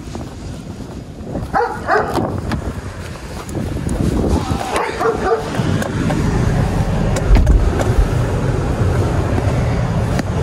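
Kia Stinger idling with a steady low rumble, heard more strongly once the driver is in the cabin, with a heavy door thump about seven seconds in. Two brief higher-pitched sounds come in the first half.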